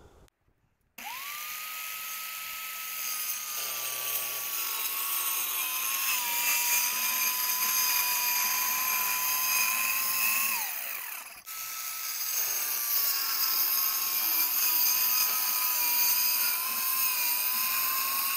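Compact corded circular saw cutting plywood in two runs. The motor's whine starts about a second in and drops a little in pitch as the blade bites into the wood. It winds down after about ten seconds, then starts again for a second cut and winds down at the end.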